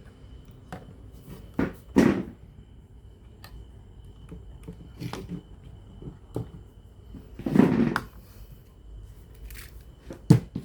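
Irregular knocks, clatters and scrapes of small hard parts and tools being handled during repair work on a cassette radio, with two louder handling noises about 2 s and 7.5 s in and a sharp knock near the end. A faint steady high whine runs underneath.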